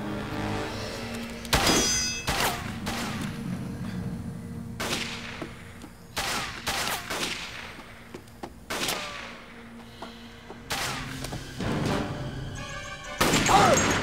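A burst of gunfire from a film shootout: about ten shots at uneven intervals, each trailing off in an echo, over a steady background music score.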